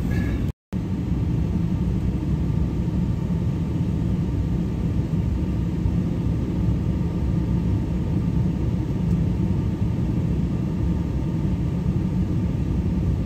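Pickup truck idling while stopped: a steady low rumble, with a brief total dropout just after the start.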